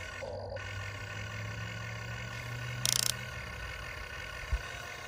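Huina 1592 RC excavator's electric motors running with a steady low hum as the boom and bucket work down into the dirt. There is a brief loud rattle about three seconds in and a single low thump near the end.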